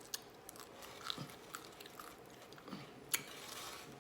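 Close-up chewing and biting of food in a mukbang: soft, scattered mouth clicks and wet chewing sounds, with one sharper click about three seconds in.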